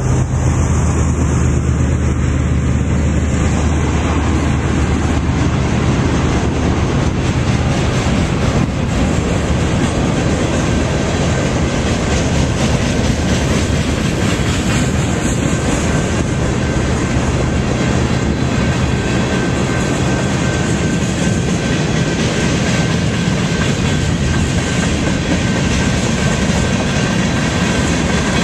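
Freight train of hoppers, tank cars and boxcars rolling past close by, with a steady rumble and the clickety-clack of wheels on the rails. At first the diesel engine of the last locomotive drones underneath, fading after a few seconds as it moves on.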